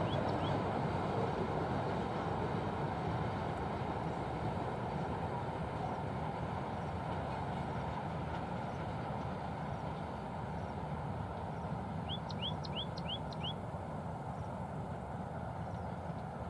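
Distant freight train of BCNA wagons behind a WAG9 electric locomotive, a steady rolling rumble that slowly fades as the train draws away. A bird gives a quick run of five rising chirps about twelve seconds in.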